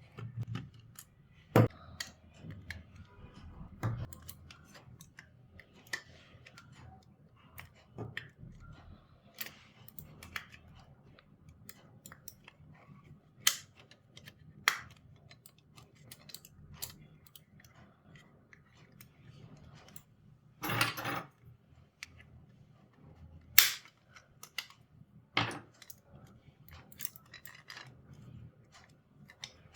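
Irregular small clicks and taps of a hand tool and the mouse's plastic parts being handled and pried while the Ironcat Infinity Mini Pro mouse is taken apart, with a short scrape about two-thirds of the way through and one sharp click soon after.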